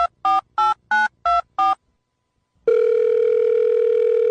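Telephone keypad touch-tones: a quick run of about six two-note beeps, roughly three a second, as a number is dialled. After a second's pause, a steady telephone tone comes on and holds.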